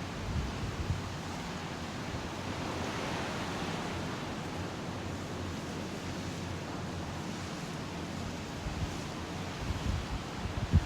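Ocean surf washing onto the beach: a steady hiss of breaking waves that swells a few seconds in, with wind buffeting the microphone near the start and again near the end.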